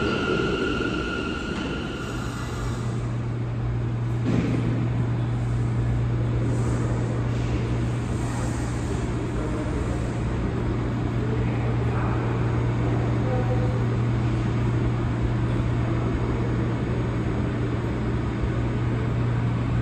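New York City subway train: a high motor whine fades out over the first two or three seconds, then a steady low hum as the train stands at the platform. One sharp knock comes about four seconds in.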